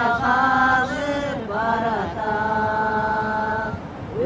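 A woman singing unaccompanied, in two long drawn-out phrases of held notes with a short breath between them.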